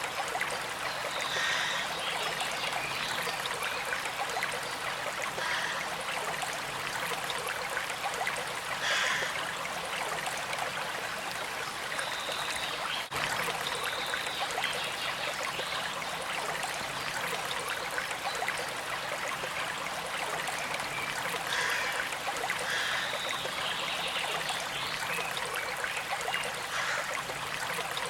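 Small stream trickling and babbling steadily, with short higher-pitched sounds standing out now and then.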